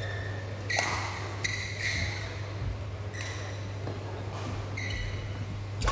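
Badminton shoes squeaking sharply on the court mat several times, with sharp racket-on-shuttlecock hits about a second in and a louder one near the end. A steady low hum runs underneath.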